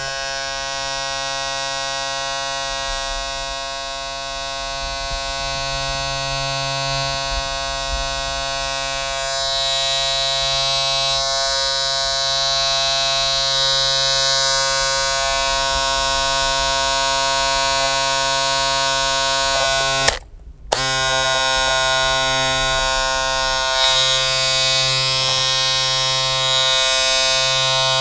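A steady electric buzz made of many evenly spaced tones, like a motor or appliance running. It cuts out briefly about twenty seconds in and then resumes.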